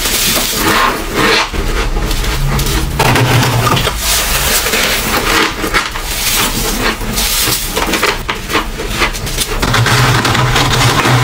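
Close-miked crunching of soft ice and freezer frost, a dense run of crisp, squeaky crunches with hardly a pause.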